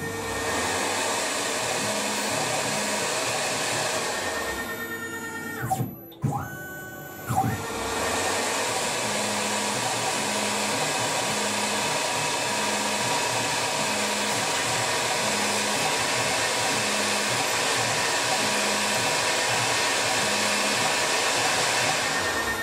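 Tormach RapidTurn CNC lathe running its spindle with a steady whirr while a drill cuts the centre of an acetal part. About six seconds in the spindle winds down, stops briefly and spins back up for the second drilling operation.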